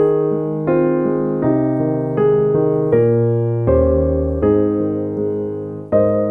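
Background music: soft piano chords, a new chord struck about every three-quarters of a second and left to ring.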